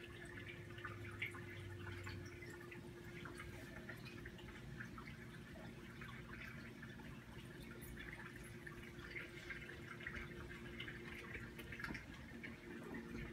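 Saltwater reef aquarium's circulating water trickling and dripping in many faint little splashes, over a steady low hum.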